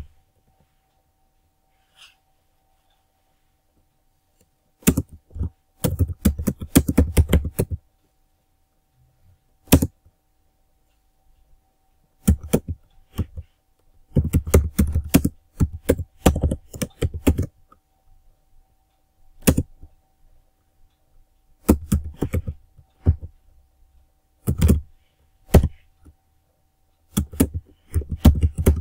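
Computer keyboard typing in bursts of rapid keystrokes separated by pauses of a few seconds, each keystroke with a low thump.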